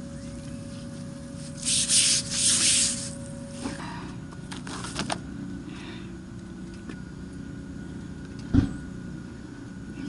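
Steady low machine hum with a higher steady tone that stops a little before four seconds in. A hiss of spraying water sounds for about a second around two seconds in. A few light handling clicks follow, and a single thump comes near the end.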